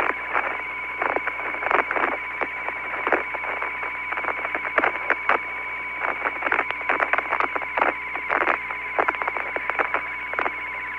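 Apollo 17 air-to-ground radio channel with nobody speaking: a steady, narrow-band static hiss with a constant high tone, broken by frequent irregular crackles and clicks.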